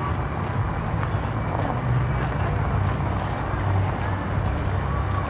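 A car engine running low and steady as the car creeps up slowly from behind, with faint clicks of high-heeled footsteps on pavement.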